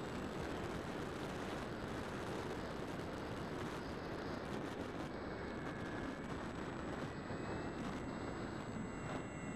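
Steady rush of air over the onboard camera of a Bixler foam RC plane in flight, with the faint, slightly wavering whine of its electric pusher motor and propeller.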